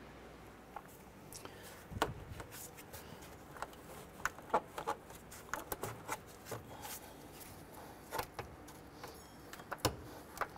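Scattered clicks, taps and rubbing as a loosened hose clamp and the rubber air intake tube of a Honda Accord are worked off by hand.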